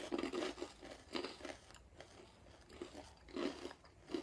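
Seaweed-wrapped rice crackers being bitten and chewed: dry, crisp crunching in several short bursts with brief pauses between.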